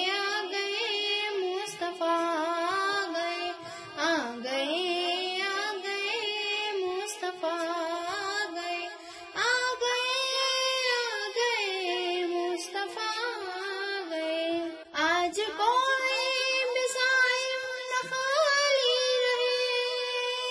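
A high solo voice singing an Urdu naat in long, ornamented melodic lines, with no instruments heard. Steady held notes come about halfway through and again in the last few seconds.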